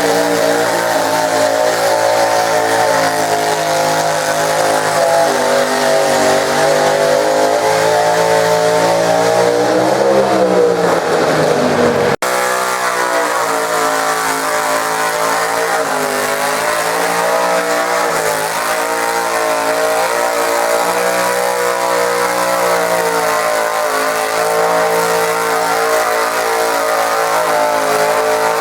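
Garden tractor engine running hard under load while pulling a weight sled. It rises in pitch, breaks off sharply about twelve seconds in, then runs on.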